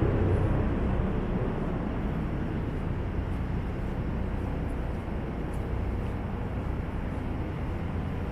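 City street traffic: a passing vehicle's low rumble fading away over the first couple of seconds, leaving a steady hum of traffic.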